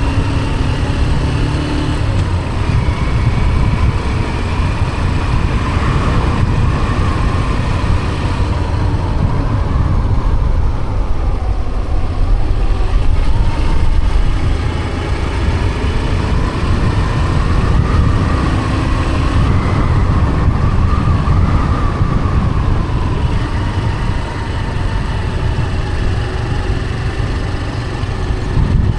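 Motor vehicle on the move: steady engine and road rumble, with a whine that rises and falls a couple of times as the speed changes.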